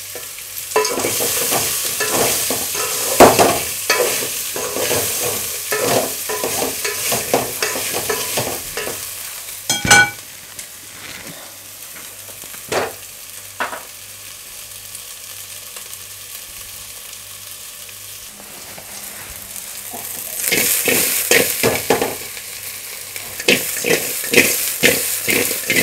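Halved baby potatoes frying in a little oil and margarine in an aluminium pot, sizzling while a slotted spatula stirs and scrapes through them with many small clicks and one sharp clack about ten seconds in. The stirring pauses for several seconds, leaving a quieter steady sizzle, then starts again, louder, near the end.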